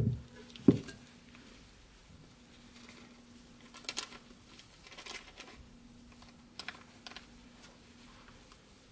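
Wooden spatula knocking, tapping and scraping against a metal baking tin while spreading batter: two sharp knocks in the first second, then a few light clicks and scrapes. A faint steady hum runs underneath.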